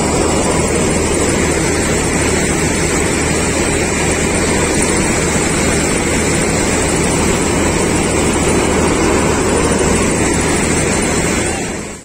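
Combine harvester running close up, its engine and threshing machinery making a loud steady noise while the unloading auger empties harvested paddy into a tractor trolley.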